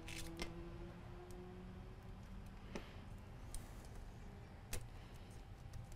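Faint, scattered clicks and ticks of a smartphone being handled by hand: about four or five separate sharp ticks, the loudest a little before the five-second mark.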